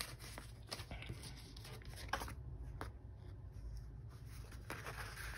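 Faint rustling and scattered light taps of paper sticker sheets being handled and shuffled on a desk.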